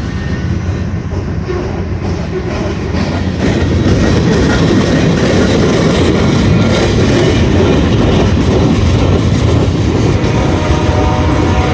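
Slow-moving CSX freight train rolling past, with a deep rumble and the clatter of its wheels on the rails; it gets louder about four seconds in.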